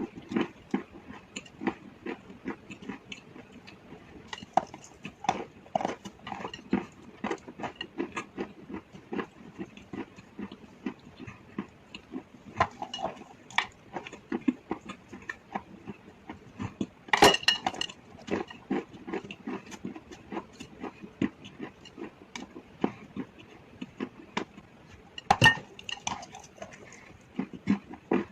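A person chewing and crunching chalk and slate pencil close to the microphone: a dense run of short, irregular crunches. Two louder sharp cracks come about halfway through and near the end.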